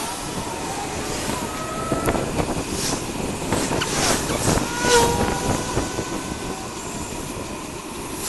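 Riding noise from a recumbent bicycle moving along a road: wind rushing over the microphone and road rumble, with scattered rattling clicks and a few brief squeaks.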